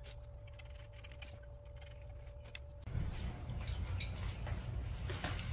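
Faint clicks and rustling from hands working a new window screen's mesh in its frame. About three seconds in, a louder low rumble joins.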